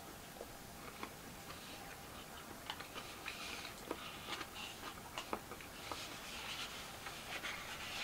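Faint eating sounds: chewing and small mouth noises, with scattered light clicks of a utensil against a takeout container, most frequent in the middle.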